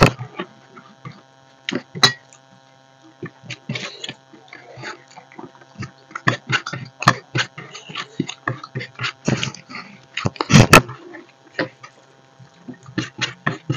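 Hands mixing and scooping rice on stainless steel plates: irregular clicks, taps and scrapes of fingers and food against the metal, with the loudest cluster about ten and a half seconds in. A steady electrical hum runs underneath.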